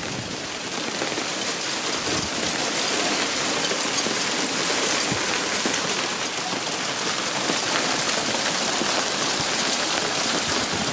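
Heavy rain pelting down on hard surfaces: a dense, steady hiss of countless drop impacts, building a little over the first couple of seconds.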